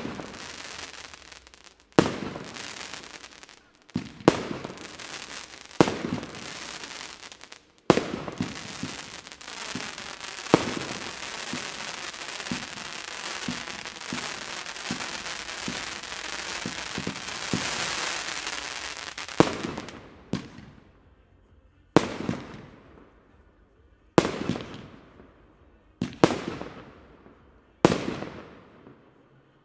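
Aerial fireworks going off in a finale: sharp bangs about every two seconds. Through the middle there is a long stretch of dense crackling, and then five more bangs about two seconds apart, each trailing off in an echo.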